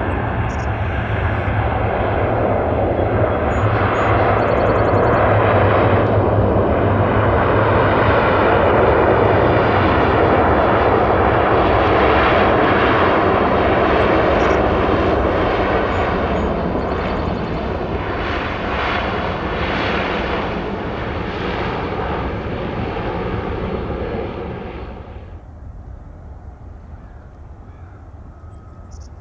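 Engines of an arriving airliner passing close by. A steady engine noise swells to a peak, slowly fades, then drops away sharply near the end.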